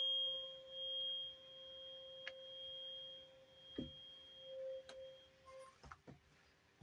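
528 Hz tuning fork ringing with a steady pure tone after a strike from a rubber mallet, fading out about six seconds in. A soft knock comes about four seconds in, and a few light clicks near the end as the fork is handled.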